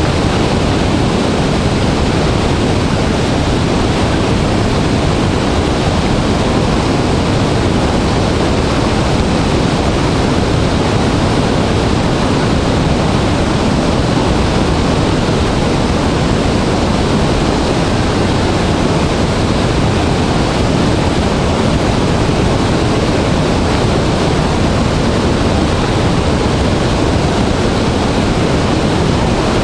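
Large waterfall thundering in heavy flow, a loud, steady roar of falling water that is deepest in the bass.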